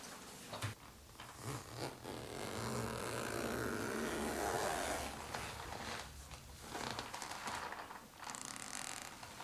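Side zipper of a leather thigh-high boot being zipped up: one long continuous zip lasting about three seconds, with a few short clicks before and after it.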